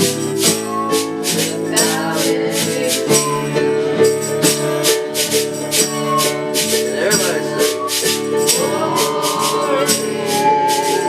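Music with a steady beat of short, evenly spaced percussion strokes, about two a second, over held pitched notes.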